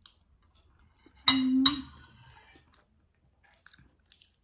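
Metal spoon set down on a ceramic plate: two quick clinks about a second in, with a brief ringing. Faint small mouth and chewing clicks near the end.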